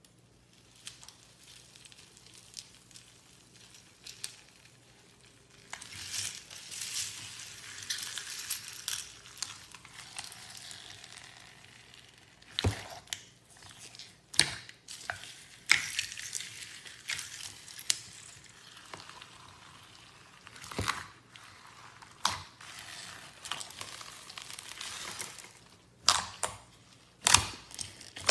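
Slime being squeezed and stretched by hand, giving crackly, hissing squishes with several sharp pops in between.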